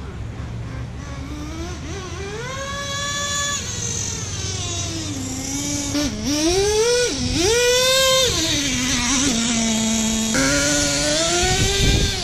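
Traxxas T-Maxx 3.3 RC truck's small two-stroke nitro engine revving up and down repeatedly as the truck is driven, growing louder over the stretch, with a sharp rev about two-thirds of the way through.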